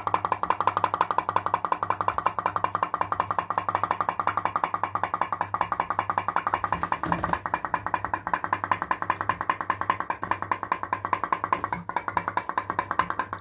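Pop-pop boat running: its tin diaphragm clicks rapidly and evenly as the candle-heated boiler pulses steam and water, with a metallic ring to each pop. Its boiler has a leak.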